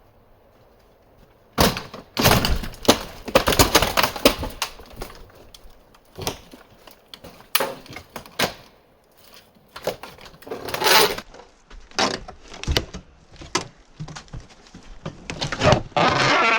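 Clattering knocks and crashes of wood and debris being pulled loose and broken up inside an RV. A dense run of impacts comes about two seconds in, then scattered knocks and two rougher scraping, ripping stretches near the middle and the end.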